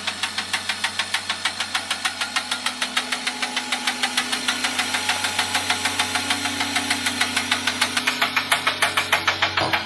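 12-volt electric column hoist, an old Molnar car hoist, running under power as it lifts: a steady motor hum under a rapid, even clatter of about six to seven clicks a second, with a higher running note joining about two and a half seconds in.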